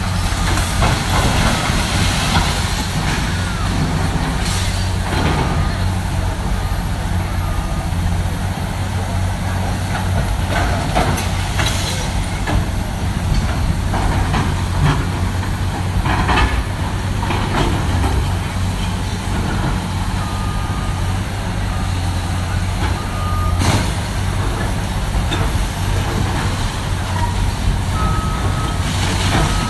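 Heavy demolition machinery's diesel engine running steadily, with several sharp knocks and crashes of material breaking and a few short backup beeps.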